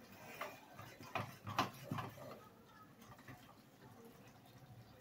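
A perforated ladle stirring thick curry in an aluminium pot, knocking and scraping against the pot's side several times in the first couple of seconds.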